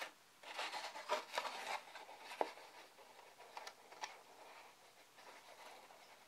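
Watercolour paper being handled and pressed by fingers: irregular rustling and rubbing, busiest in the first two seconds, with a sharp tap about two and a half seconds in and lighter rustles after.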